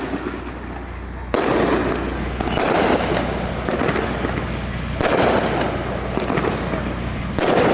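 Fireworks bursting: three sudden booms, about a second in, near the middle and near the end, each trailing off in a long rumble.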